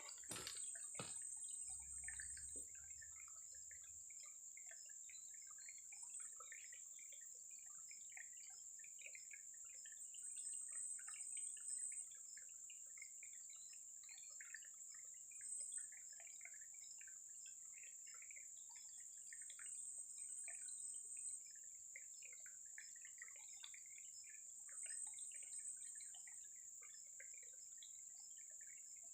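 Faint waterside ambience: small drips and trickles of water over a steady high-pitched drone that swells every few seconds.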